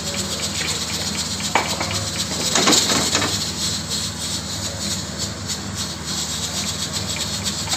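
Steady hiss of a gas stove burner under an aluminium pot of soaked dal, with a low hum beneath it. A short louder burst of noise comes about two and a half seconds in.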